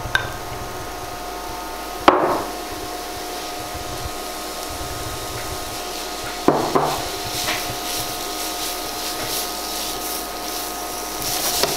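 Silicone spatula knocking sharply against a bowl and the rim of a non-stick frying pan three times while grated onion is scraped into the pan. From about halfway, the spatula stirs grated carrot and onion in a little oil with a soft sizzle.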